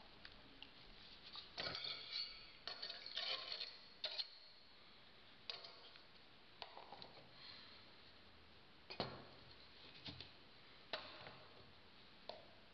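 Faint scraping and clinking of a spatula against a stainless steel bowl, with a dense run of scraping early on, then scattered light knocks as things are set down on the bench.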